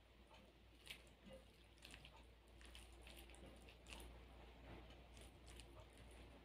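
Faint soft squishes and scattered light clicks of fingers mixing rice and curry on a glass plate, over a steady low hum.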